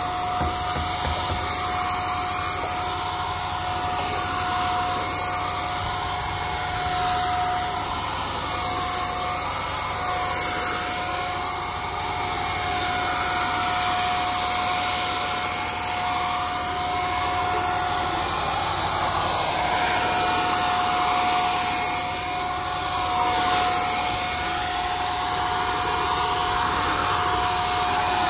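Handheld electric paint sprayer running steadily as it sprays paint, a continuous whirring motor noise with a steady whine through it that drops out briefly a couple of times.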